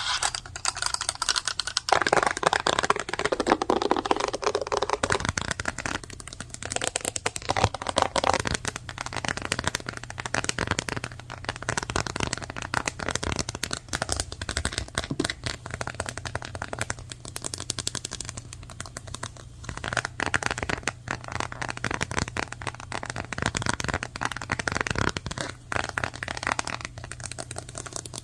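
Fast typing on a computer keyboard: a rapid, dense run of key clicks, loudest for a few seconds near the start.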